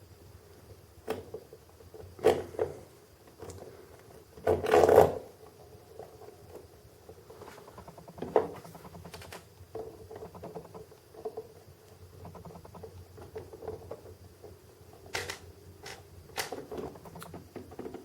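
Scattered light clicks and taps of small metal parts being handled as a tiny replacement pin is slid into a 1/50 scale diecast crane model. The loudest is a longer handling noise about five seconds in, with a few quick clicks near the end.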